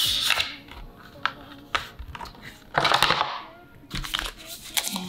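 Paper-card packaging being unfolded and handled: scattered crinkles and light clicks, with a louder sliding swish of card about three seconds in.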